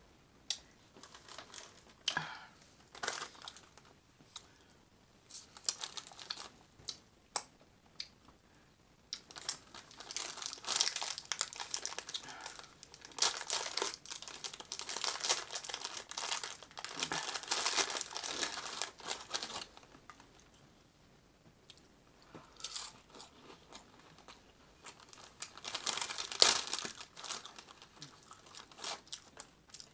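Paper towel roll being handled: scattered taps and rustles at first, then long stretches of crinkling and tearing as sheets are pulled and torn off the roll, in two main bursts.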